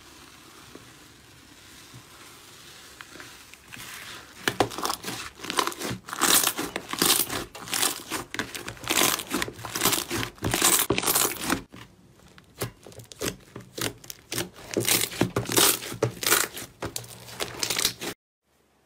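Hands poking, squeezing and kneading slime. A soft hiss at first, then from about four seconds a dense run of irregular crackles and sticky pops, which stops suddenly near the end.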